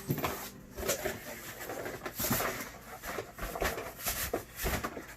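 Cardboard box scraping and rustling in irregular bursts, with a few knocks, as a snug-fitting hard gun case is wrestled out of it.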